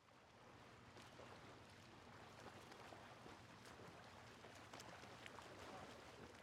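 Faint lapping of small waves on open water: a soft, even wash with light splashes.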